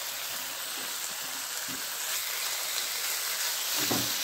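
Marinated chicken strips sizzling in hot oil in a frying pan, a steady hiss that grows louder about halfway through. A soft knock near the end.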